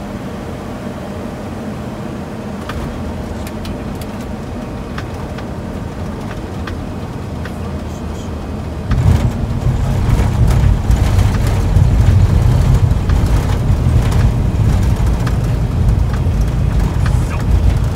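Cockpit noise of an Embraer E190 airliner on final approach: a steady rush of airflow and engine noise. About nine seconds in the wheels touch down, and a loud low rumble of the landing gear rolling on the runway takes over, with scattered knocks and rattles.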